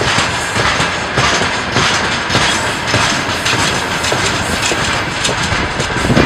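Loaded open freight wagons of a freight train rolling past close by: steel wheels clattering on the rails, a loud steady rumble with irregular clicks and knocks.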